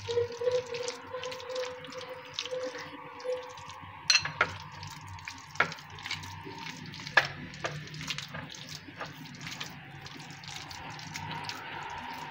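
A hand kneading and squeezing raw beef mince, bound with egg and sauce, in a steel bowl: irregular wet squelches and squishes, with a few sharper clicks scattered through.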